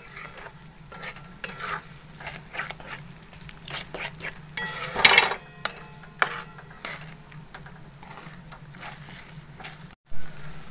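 A spatula scrapes and clinks against a metal kadhai, stirring eggs into an onion-and-chilli masala, in a run of irregular strokes. The scraping is loudest in a flurry about five seconds in.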